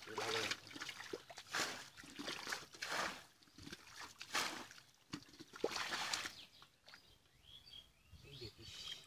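Fish splashing and flapping at the surface of a shallow, muddy pool: a series of short splashes, about one a second.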